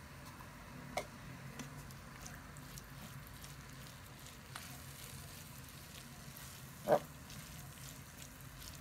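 Faint sizzling of a creamy leek and black mushroom filling cooking in a pan as it is stirred with a wooden spoon, over a low steady hum. There is a light click about a second in and a brief louder knock near the end.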